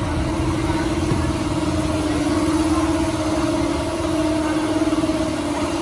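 An engine idling steadily, a low hum with a fast, even pulse that does not change in pitch.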